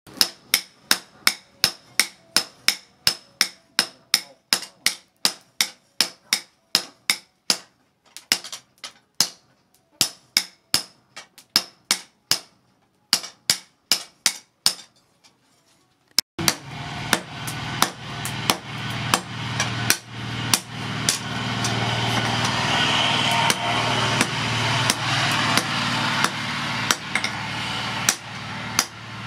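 Hammers striking a red-hot steel knife blade on an anvil: two smiths taking turns with a hand hammer and a sledgehammer, about two to three ringing blows a second. The blows stop briefly about halfway, then resume with a steady hum and hiss underneath.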